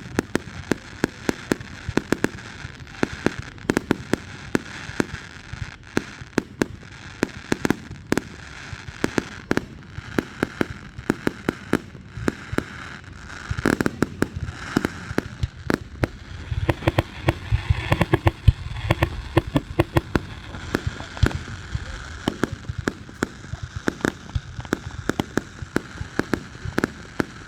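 Fireworks going off in a rapid, irregular run of sharp bangs and crackles, growing denser and louder with a low rumble for a few seconds past the middle.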